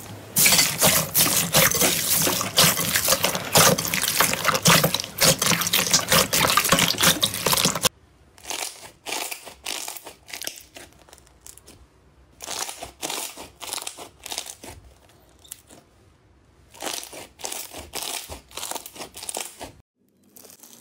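Beaded crunchy slime squeezed and pressed by hand, giving a dense, loud crackle. About eight seconds in it changes to sparser, quieter clicks and pops as hands knead another slime, with a short silence just before the end.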